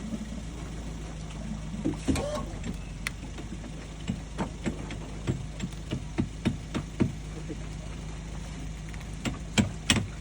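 A run of sharp knocks or taps, about three a second, from about four to seven seconds in, and again near the end, over a steady low hum.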